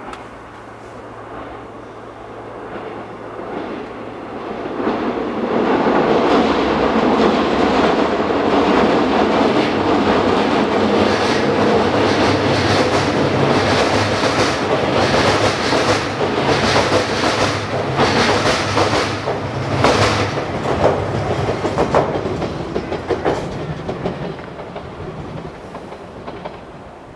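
485-series electric limited express train passing over a railway bridge. A rumble builds over several seconds into loud running noise, with repeated clacks of wheels over rail joints, then fades near the end.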